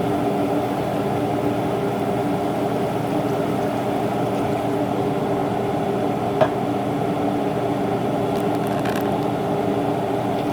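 A steady mechanical hum over liquid bubbling in a cooking pot just filled with water over sautéed onion and ginger, with a single sharp click about six seconds in.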